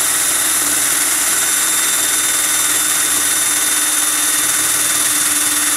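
Power drill running steadily at full trigger, spinning a potato against a vegetable peeler, with a strong hiss of peel being shaved off.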